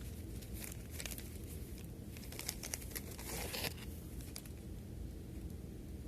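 Paper wrapping and packaging crinkling and rustling in scattered short bursts as it is handled. The busiest stretch comes about two to four seconds in, over a steady low room hum.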